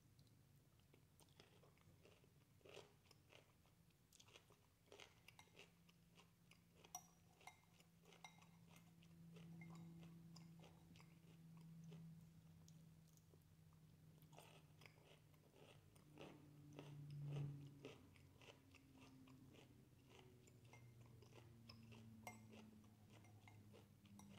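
Close chewing of cooked broccoli: many small, quiet crunches and mouth clicks, with a faint low hum that swells now and then and is loudest about two-thirds of the way in.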